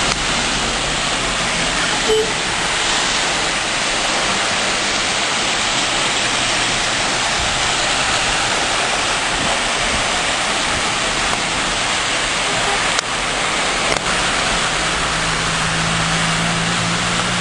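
Heavy rain pouring down: a loud, steady hiss, with a few faint clicks and a low hum coming in near the end.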